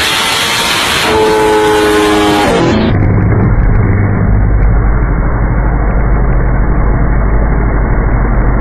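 Sport motorcycle engine held at high revs, its pitch falling as the throttle closes near three seconds in. Then a deep, dull engine rumble while the exhaust shoots flames.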